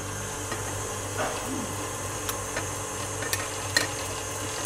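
Electric mixer running steadily, beating egg yolks into a meringue of whipped egg whites and sugar, with a few faint clicks.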